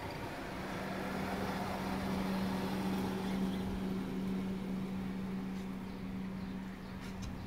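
Engine hum of a passing vehicle: a steady low drone that swells to its loudest around the middle and fades away.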